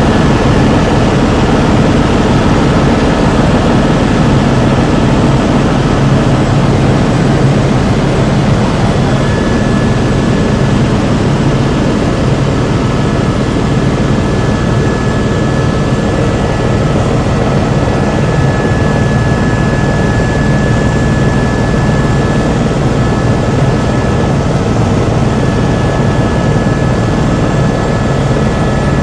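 Helicopter in flight heard from inside the cabin: a loud, steady engine and rotor drone with a thin, steady high whine over it.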